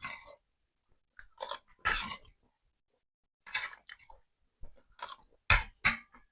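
A person chewing and biting a mouthful of nasi telur (rice with egg) close to the microphone, in short bursts with brief pauses; the last two are the loudest.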